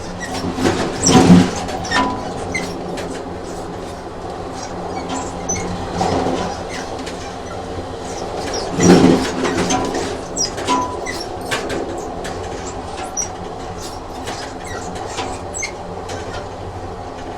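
A train running on rails, heard as a steady mechanical hum with irregular knocks and clicks from the wheels over the track, and short high squeaks. The knocks are loudest about a second in and again around nine seconds in.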